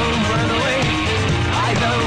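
Rock music with guitar, steady and loud.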